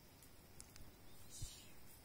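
Near silence: faint rustling and light ticks, with one soft low bump about one and a half seconds in, as goat kids move against the microphone.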